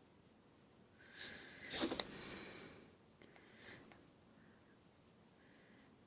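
Marker nib stroking across smooth paper: a few faint scratchy strokes about a second in, then a small tick and one more short stroke.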